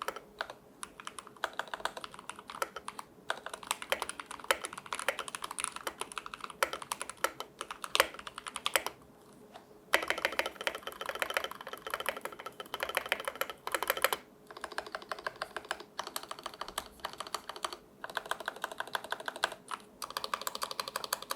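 Keychron K8 Pro mechanical keyboard being typed on in runs of quick keystrokes, with its stock factory-lubed switches, OSA keycaps and stabilizers not yet tuned. A short pause about nine seconds in.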